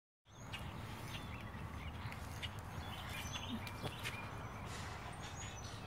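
Ford Mustang GT's 5.0 V8 idling with a steady low rumble through a Roush exhaust with the resonator deleted. Birds chirp briefly over it.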